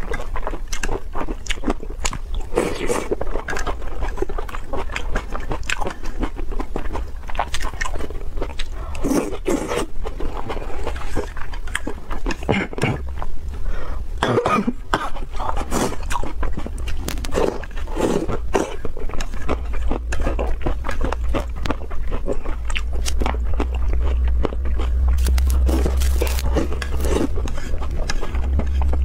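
Close-up eating sounds of a person slurping spicy noodles from chopsticks and chewing, with many short wet smacks and clicks. A low steady hum runs underneath and grows louder in the second half.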